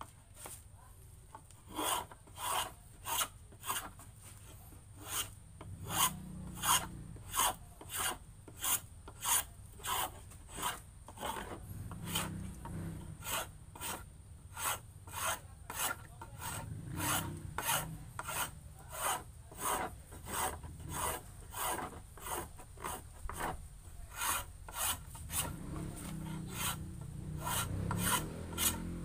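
A hand tool scraping along wood in steady back-and-forth strokes, about one and a half a second, as a wooden paddle is shaped by hand; the strokes begin about two seconds in.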